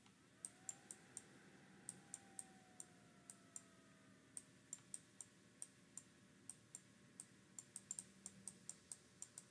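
Quiet, irregular clicking of pen strokes as words are handwritten into a computer drawing program, about thirty sharp clicks at an uneven pace.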